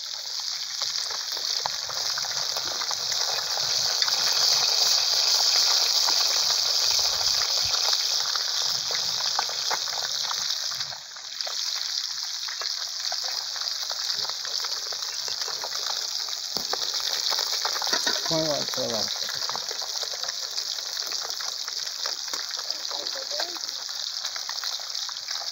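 Traíra pieces frying in hot oil in a plow-disc pan over a wood fire: a steady sizzle, dipping briefly about eleven seconds in.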